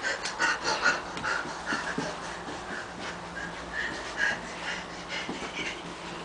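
A person panting in short, quick, irregular breaths, densest and loudest in the first second.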